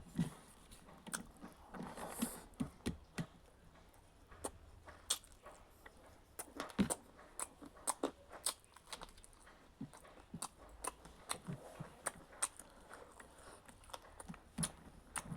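A person chewing food with the mouth close to the microphone, with irregular wet clicks and smacks several times a second.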